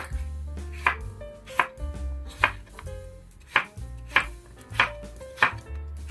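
A knife chopping food on a cutting board in slow, evenly spaced strokes, about one every two-thirds of a second, with background music underneath.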